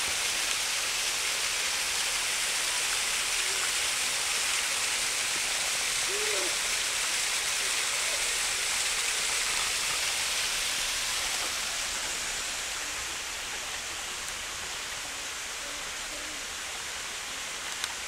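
Water still running behind a frozen, ice-hung waterfall: a steady rushing hiss that eases a little after about twelve seconds. A short low hoot-like call sounds once about six seconds in.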